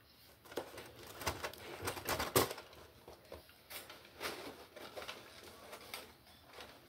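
A cardboard takeout box being picked up and handled: a run of irregular taps, scrapes and rustles, loudest about two and a half seconds in.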